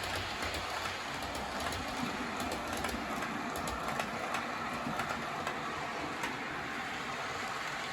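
Model railway train running along the layout track, a steady rolling hum with irregular clicks of wheels passing over the rail joints.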